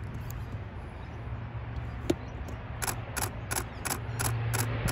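A steady low engine drone, growing a little louder, with a sharp click about two seconds in and then regular clicks at about three a second.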